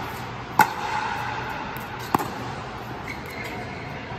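Pickleball paddles striking the ball twice, sharp hollow pocks about a second and a half apart, the first echoing briefly around the air-supported dome.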